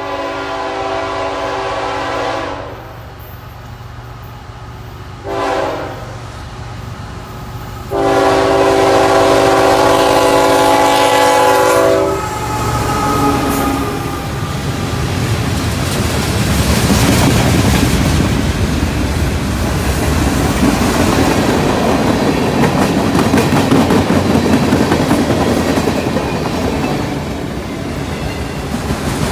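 CSX GE ET44AH freight locomotive's multi-note air horn blowing for a grade crossing: a long blast, a short one, then a long one. Then the locomotive goes by and a slow mixed freight train of hoppers and autoracks rolls past, with a steady rumble and clatter of wheels on the rails.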